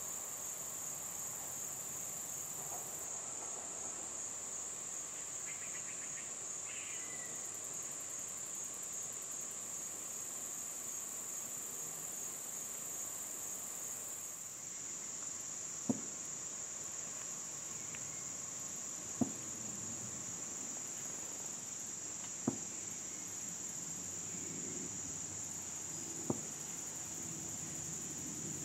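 Steady, high-pitched chorus of crickets and other insects. In the second half, four sharp clicks a few seconds apart.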